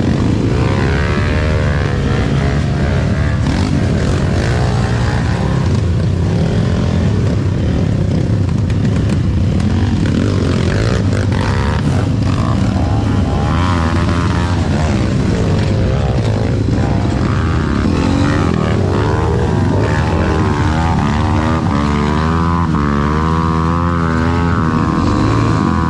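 Trail motorcycle engine running loudly and revving up and down, the pitch rising and falling repeatedly.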